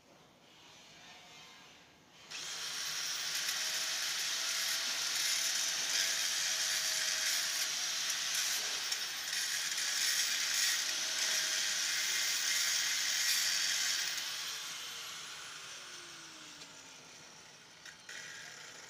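Angle grinder grinding on a steel pipe weld. It starts abruptly about two seconds in with a steady hissing rasp, then about three-quarters of the way through it is switched off and spins down, a falling whine fading away.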